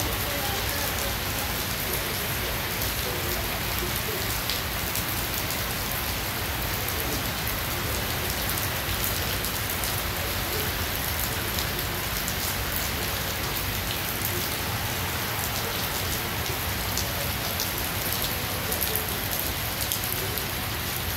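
Steady light rain falling on wet pavement: a constant hiss scattered with many small drop ticks.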